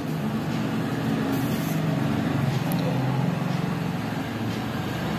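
Steady low background rumble with a hiss over it, swelling slightly in the middle and easing near the end.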